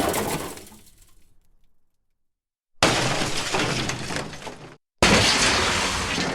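Glass shattering crashes played one after another: the last of one crash dies away in the first two seconds, then two more sudden smashes follow, about three and five seconds in, each trailing off in tinkling debris.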